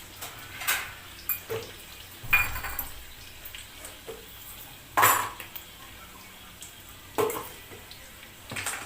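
Spoon clinking and scraping against a cooking pan, about eight separate strikes with the loudest about five seconds in, over a faint sizzle from the frying tempering.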